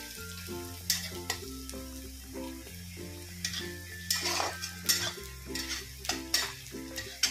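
Chopped onion frying in oil in a steel pan, sizzling, while a spatula scrapes and stirs it in repeated short strokes. Background music with a steady bass line plays underneath.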